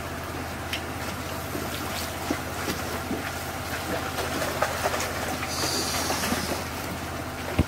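Water splashing and churning in a lift net as it is hauled up, with many small irregular splashes and a sharper knock near the end. A motor hums steadily underneath.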